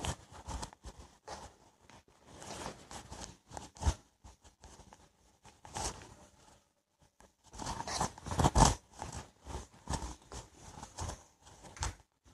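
A duster rubbing marker writing off a whiteboard: irregular bursts of scrubbing strokes with short pauses between them, the strongest cluster about two-thirds of the way through.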